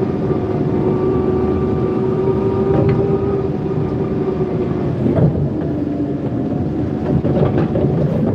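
Forklift running as it is driven, a steady whine over a low noise; the whine sags in pitch about halfway through, then picks back up.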